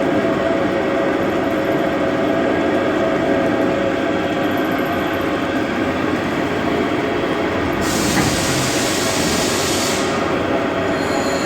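CNC machining centre running with its 90-degree angle head: a steady mechanical hum with several held tones. A loud hiss lasts about two seconds starting near the end.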